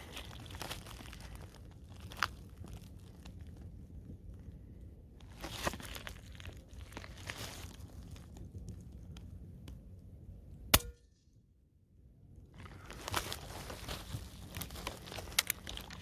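Rustling and handling noise with a few light clicks, then a single sharp crack of a Diana air rifle firing about eleven seconds in. The sound drops out almost completely for a second or so right after the shot.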